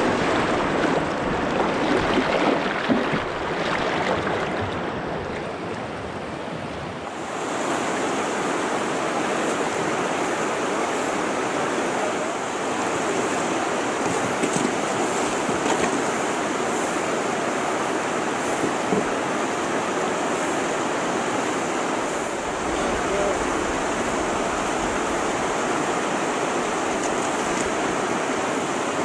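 Whitewater of a river rapid rushing over rocks, a steady dense roar of water that changes in character about seven seconds in.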